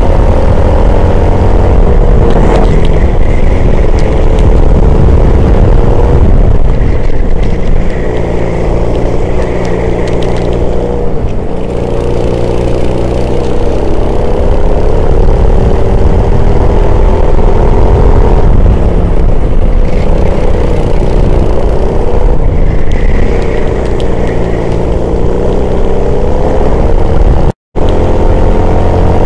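Race car engine heard onboard at racing speed, loud and continuous. Its note climbs for a few seconds, then drops back and climbs again, again and again, as the driver works through gear changes and corners around the lap. The audio cuts out for an instant near the end.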